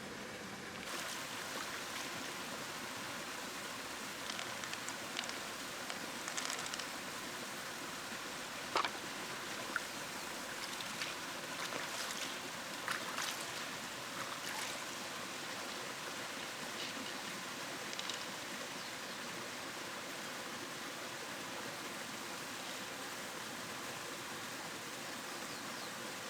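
Flowing river water, a steady rushing, with scattered small clicks and taps over it; the sharpest comes about nine seconds in.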